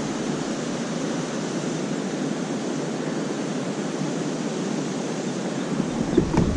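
Steady rushing noise of wind and water, with no clear tone or rhythm. About six seconds in, a low wind rumble on the microphone comes in, with a couple of light knocks.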